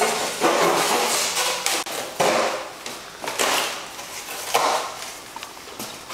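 Cardboard box being handled and cut with a kitchen knife: scraping and rustling, with a few sharp knocks, the loudest about four and a half seconds in.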